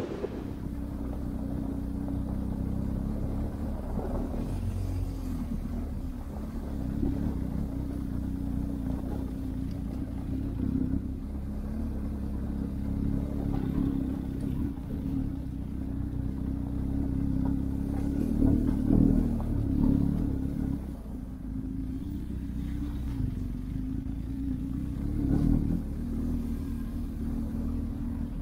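Motorcycle engine running steadily under way, heard muffled with little but its low tones. It swells a few times about two-thirds of the way through as the throttle opens.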